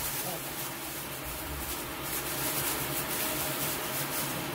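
A thin plastic bag rustling and crinkling while raw meat slides out of it into an aluminium pot, over a steady low hiss and hum.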